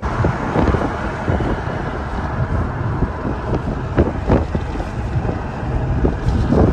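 Wind buffeting the microphone in irregular gusts over a low rumble, as from a moving vehicle.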